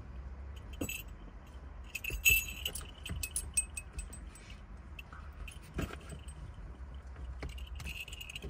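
A dog's metal collar tags jingling in short spells with scattered clicks, loudest about two seconds in, over a low steady hum.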